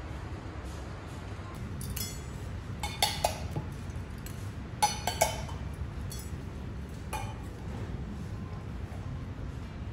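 Stainless steel cat food bowls clinking as cats eat from them and nudge them on the floor: about six light metallic clinks with a short ring, the loudest two near the middle, over a steady low hum.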